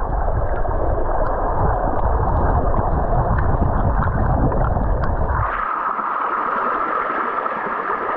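Creek water pouring and churning under a small waterfall, heard muffled through a submerged camera, with a heavy low rumble. About five seconds in the rumble drops away, leaving a steadier hiss of rushing water.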